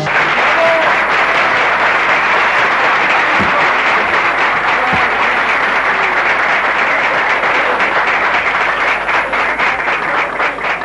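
Audience applauding steadily, thinning into separate claps near the end.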